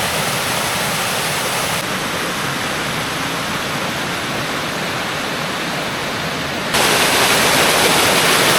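Water rushing steadily down a small cascade of waterfalls on a mountain creek. The rush suddenly grows louder and brighter a little over two-thirds of the way through.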